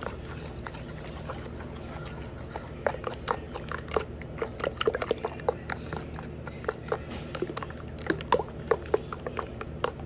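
Raw eggs with spices being beaten in a bowl with a utensil: quick, irregular wet clicks of the utensil against the bowl, growing busier a few seconds in.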